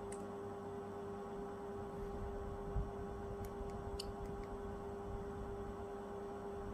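Steady electrical hum with a few faint clicks: one just after the start and a small cluster about three and a half to four seconds in.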